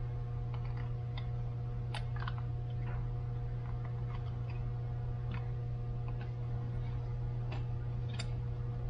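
Small metallic clicks and ticks of a piston ring being handled in an engine cylinder bore for an end-gap check, with two sharper clicks about two seconds in and near the end. A steady low hum runs underneath.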